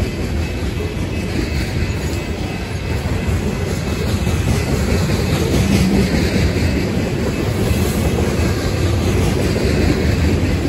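A train rolling past, with a steady, loud rumble of its cars' wheels on the rails.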